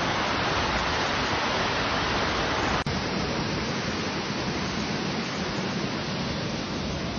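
A steady, even rushing noise with no distinct events, broken by a brief dropout about three seconds in.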